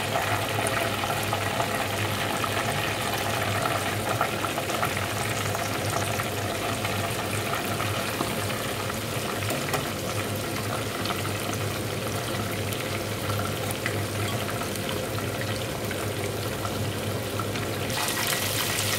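Chicken pieces deep-frying in hot oil in a stainless steel pot: a steady bubbling sizzle with fine crackles over a low hum. The sizzle gets brighter and sharper near the end.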